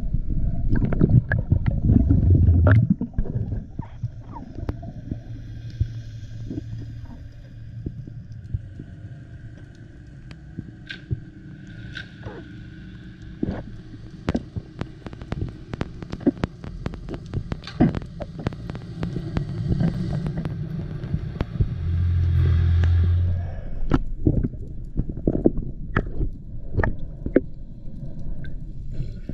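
Underwater sound picked up through a waterproof camera housing: a steady low rumble with many sharp clicks and crackles. A louder low hum swells near the start and again about 22 seconds in.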